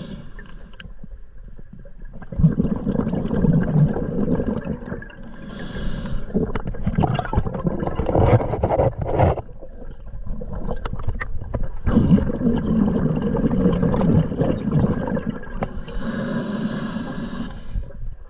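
A sidemount scuba diver's open-circuit regulator breathing underwater. There are short hissing inhalations through the second stage about five seconds in and again near the end. Between them come long stretches of exhaled air bubbling and gurgling out of the exhaust.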